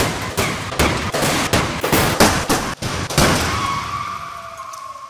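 Side-impact crash test: a 4,200-pound moving barrier strikes the side of a Honda Civic, a sudden burst of crunching metal and plastic impacts lasting about three seconds. It is followed by a fading metallic ringing that slides slightly down in pitch.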